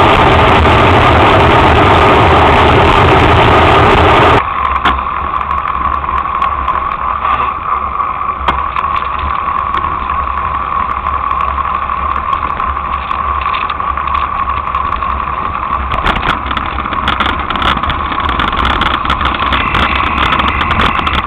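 Loud rushing wind and road noise on a bicycle-mounted camera microphone while riding, cutting off suddenly about four seconds in. After that, the low rumble of idling traffic engines, vans and trucks, with a steady hum and scattered sharp clicks and knocks.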